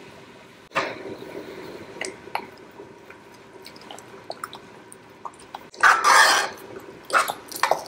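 A spoon stirring thick lentil stew in a saucepan: wet squelching and scraping with light knocks of the spoon against the pot, loudest about six seconds in.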